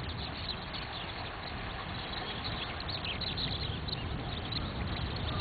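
Flash-flood water flowing down a desert riverbed, a steady rushing noise, with a few faint bird chirps about three seconds in.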